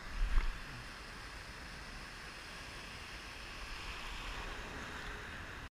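Ocean surf washing around the camera, a steady hiss of moving water, with a brief low thump on the microphone about a third of a second in.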